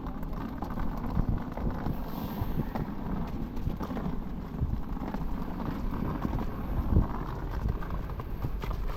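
Outdoor city street noise: a steady low rumble with irregular knocks and thumps, the strongest about seven seconds in.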